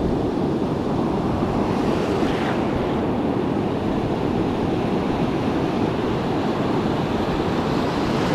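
Ocean surf breaking and washing up the beach in a steady rush, with wind on the microphone.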